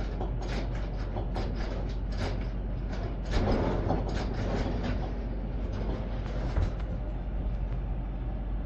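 Light, irregular knocks and clatter of something being handled, over a steady low rumble.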